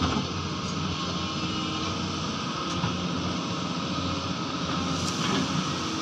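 Crawler excavator's diesel engine running steadily while it digs.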